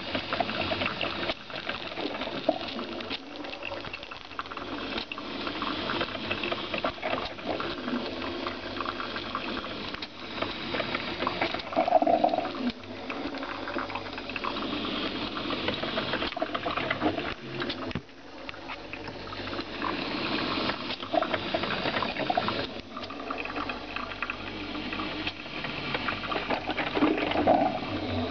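Philips drip coffee maker brewing, hot water bubbling through the machine, with louder surges about twelve seconds in and again near the end.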